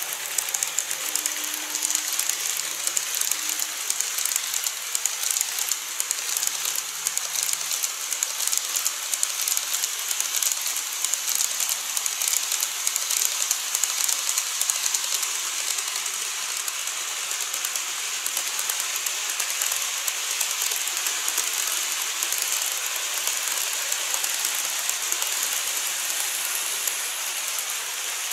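Model trains running across a model truss bridge: an ED76 locomotive with 14-series coaches, then a 787-series set. Their wheels make a steady, high-pitched rattle of rapid fine clicks on the track.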